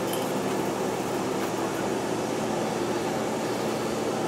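Steady, even hiss with a faint low hum under it, unchanging in loudness.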